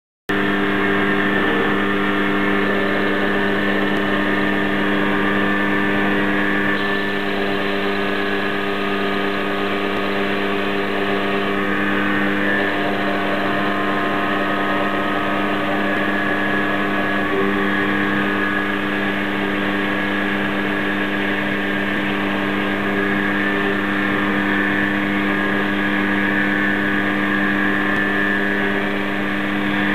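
Quantum D 210 x 400 Vario bench lathe, converted to CNC, running: a steady machine hum and whine from its drive, whose higher tones shift a few times.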